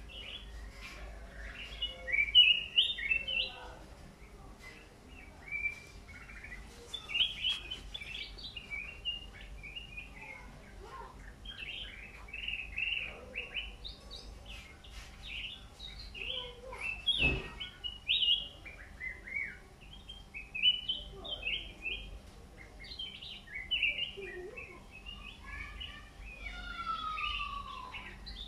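Caged songbird singing a continuous run of quick chirping, twittering phrases, with a sliding whistle near the end. A single sharp knock about seventeen seconds in.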